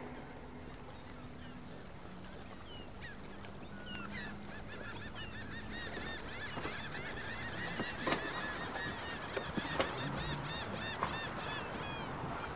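A flock of birds calling: many short, quick calls that begin a few seconds in and grow dense, over a low steady haze with a few sharp clicks. Music fades out at the very start.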